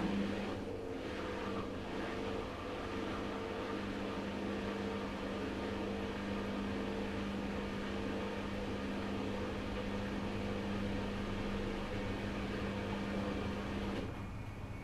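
Front-loading washing machine running with a steady motor hum at an unchanging pitch, cutting off about a second before the end.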